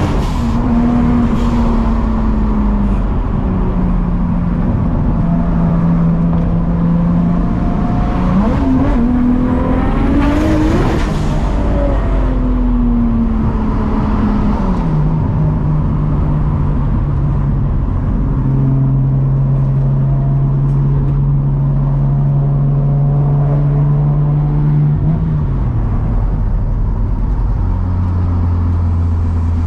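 Nissan RB30 straight-six in an S14 Silvia, heard from inside the car while driving. The engine revs up hard to a peak about ten seconds in, eases back to a steady cruise, then drops to a lower pitch near the end.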